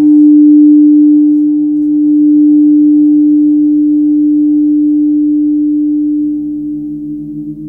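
Large Tibetan gong played with a soft mallet, ringing as a steady low hum with a fast pulsing beat under it. A second tone joins about six seconds in.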